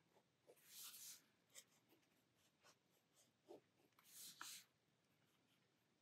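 Faint scratching of a black Pitt permanent fine-liner pen drawing on sketchbook paper: a few short strokes, the loudest about four seconds in.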